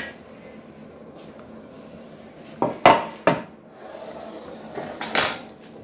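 Kitchen utensils clattering against a pot: a few sharp knocks about three seconds in, and another cluster about five seconds in.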